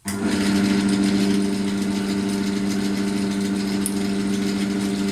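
Bench drill press motor switched on, starting abruptly and running steadily with a strong hum, while powered from a portable power station's modified sine wave inverter.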